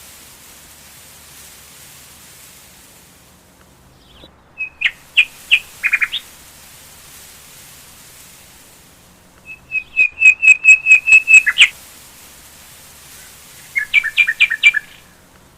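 A bird calling in three runs of quick, high chirps, each run a rapid series of notes about five a second, over a steady background hiss.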